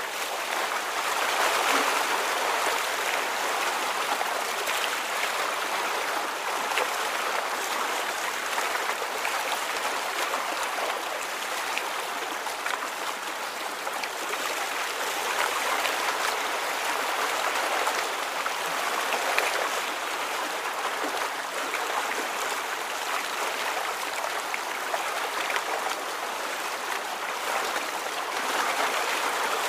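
Steady sound of moving water, a continuous even rush like a gently flowing stream, swelling slightly now and then.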